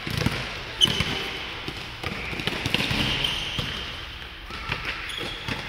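Basketball game on a wooden indoor court: the ball bouncing and players' feet thudding, with several high sneaker squeaks.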